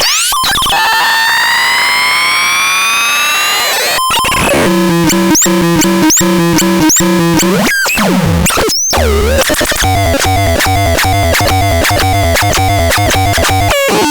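Synthesizer playing electronic tones: rising pitch sweeps over the first four seconds, then a stepping, repeating sequence with high chirps. After a short break, a faster pulsing pattern plays over a low bass note.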